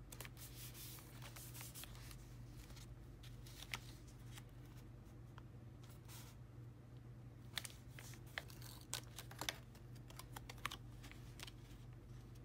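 Paper crafting at close range: washi tape being torn and pressed down, and photocards and paper pages rustling and tapping under the hands. A soft rustle in the first couple of seconds, then scattered small clicks and taps that cluster later on.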